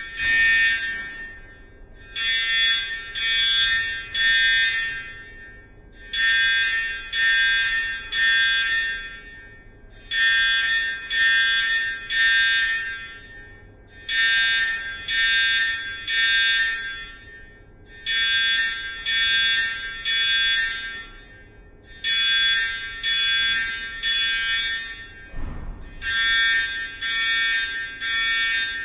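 School fire alarm sounding in groups of three ringing tones, the groups repeating about every four seconds with a short pause between. A single brief thump comes near the end.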